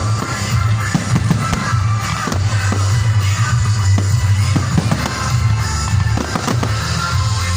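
Music with a heavy steady bass, with fireworks going off over it: irregular bangs and crackles throughout.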